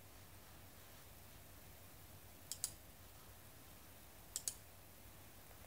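Computer mouse button clicking: two sharp double clicks, about two seconds apart, over faint room hum.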